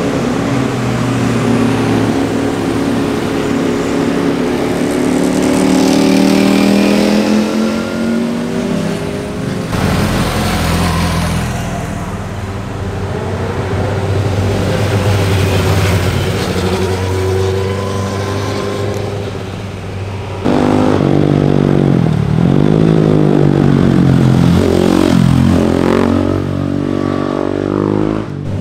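Sport motorcycle engines passing through mountain-road bends one after another, revving up and down through the gears, with the engine note rising and falling. The sound changes abruptly twice as a new bike takes over, about ten and twenty seconds in; the last bike's note swoops down and up several times.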